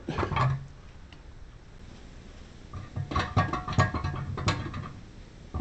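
Metal tools clinking and rattling as they are handled, a cluster of irregular clinks with a faint metallic ring a little past halfway through.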